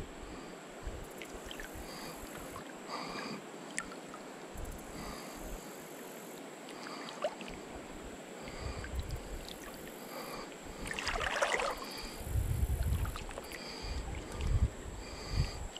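River water lapping against a canoe close to the microphone, with irregular low rumbles and a faint short high chirp repeating about once a second.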